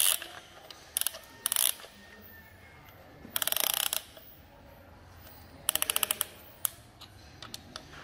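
Ratchet of a band-type piston ring compressor clicking in two quick runs of about half a second each as it is worked around a piston's rings. A few single metal clicks come first.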